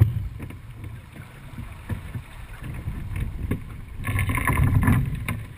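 Wind buffeting the microphone over the rush of water along the hull of a sailing yacht under way, with scattered short clicks and knocks. The noise grows louder and brighter about four seconds in, for roughly a second.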